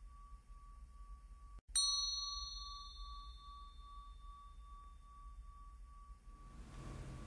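A struck bell ringing with a slow, pulsing tone; it is struck again about two seconds in and rings on, fading slowly. Near the end a soft rushing noise swells in.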